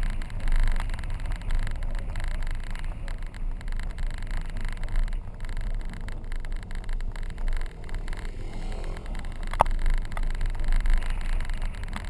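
Car driving slowly on a dirt road: a steady, uneven low rumble of tyres and engine over the rough surface, with a single sharp knock about three-quarters of the way through.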